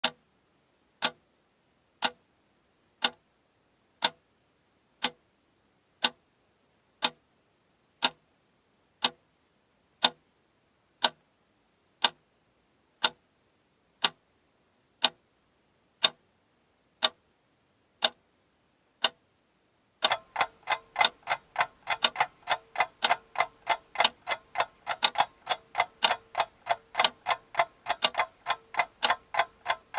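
Clock ticking once a second, each tick a single sharp click with silence between. About twenty seconds in, the ticking turns into a dense, overlapping clatter of ticks at several different rates over a faint steady tone.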